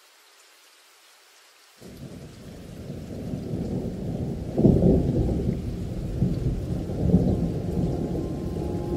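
Faint hiss, then about two seconds in a deep rolling rumble starts suddenly and swells, loudest about halfway through, with another surge near the end.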